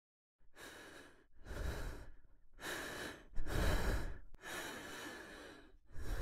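A man breathing heavily and raggedly, about six deep breaths in and out, like someone catching his breath after a fright. It starts about half a second in.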